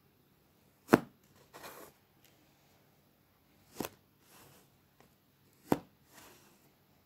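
Plastic cutting tool chopping down through kinetic sand: three sharp taps as it strikes the tray underneath, at roughly two-second intervals, each followed by a soft scraping rustle of sand.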